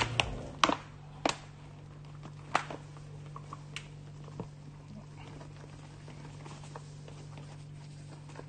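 A paper flour bag crinkling in a few short, sharp crackles during the first few seconds as flour is poured from it into a steel mixing bowl, over a steady low hum.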